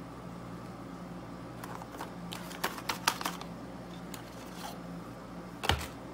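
Unboxing handling sounds: a quick run of light clicks and rustles in the middle, a few more after it, and one louder knock near the end, over a steady low hum.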